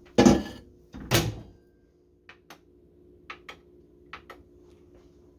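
A microwave oven door shut with a knock, a second knock about a second later, then six short button clicks in pairs as the microwave is set, over a faint steady hum.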